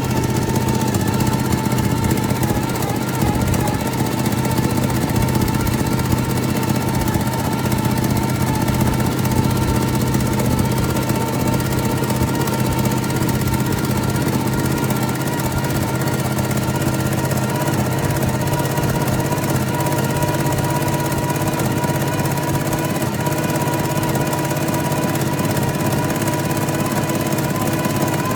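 Rebuilt Toyota 1FZ-FE inline-six engine running steadily, with a high-pitched whine over the engine note that creeps slightly up in pitch.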